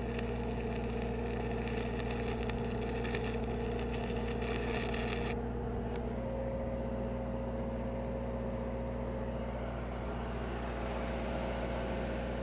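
Stick-welding arc from a 1/8-inch 6010 rod crackling and sizzling, then cutting off about five seconds in as the rod is broken away from the puddle. Under it, the engine of a Lincoln SAE 300 engine-driven welder runs steadily.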